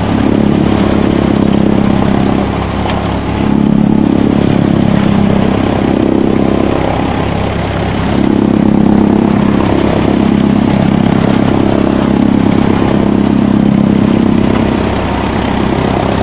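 Multi-crop thresher running steadily while cereal sheaves are fed into it, a loud low mechanical drone that swells and eases every few seconds.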